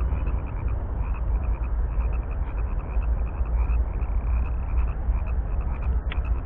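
A chorus of frogs calling, with short calls repeating rapidly and continuously, over a steady low rumble and a sharp click near the end.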